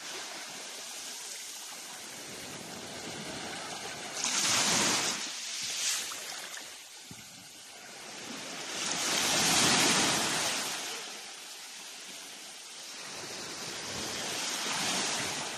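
Small ocean waves washing in and drawing back over a sandy beach at the water's edge, the surf swelling loudly about four seconds in, again around ten seconds, and once more near the end.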